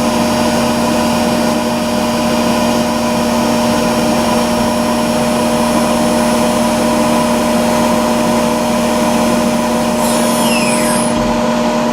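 Electric motor running steadily on a test bench, driven by a Yaskawa Varispeed 626VM3 drive: a constant hum and whine with a few fixed tones over a rushing noise. Near the end, brief high swooping sounds are laid over it.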